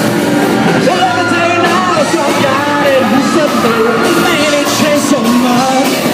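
A rock band playing live, with a singer's lead vocal over the band and drums.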